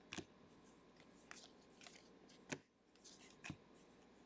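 Faint flicks of glossy football trading cards being slid from the back of a small stack to the front, one card at a time: a few short, sharp clicks about a second apart, the loudest about two and a half seconds in.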